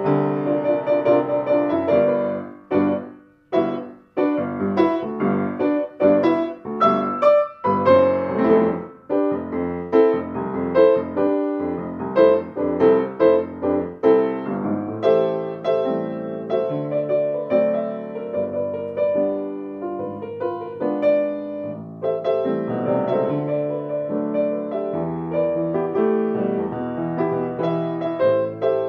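Steinway Model M grand piano playing a continuous passage of single notes and chords. The music stops twice, very briefly, about three and four seconds in, then carries on.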